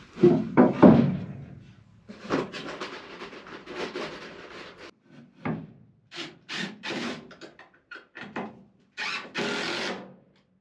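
Wooden boards being handled and fitted into a frame: a few knocks of wood on wood at the start, then uneven bursts of scraping and rubbing.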